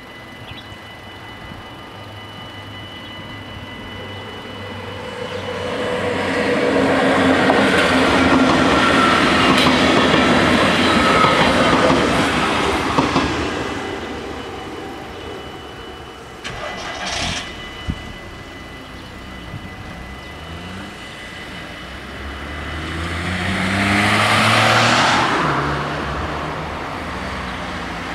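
An electric SGMm sprinter train passes a level crossing, swelling to a loud rush with a motor whine for several seconds, while the crossing's warning bells ring steadily and then stop soon after the train has gone. Near the end a car pulls away over the crossing, its engine rising through the gears.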